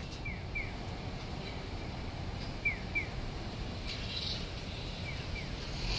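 Japanese audible pedestrian crossing signal giving its 'piyo-piyo' call: pairs of short, falling, bird-like electronic chirps repeating about every two and a half seconds, three times, over a steady hum of city traffic. This call marks the walk light as green.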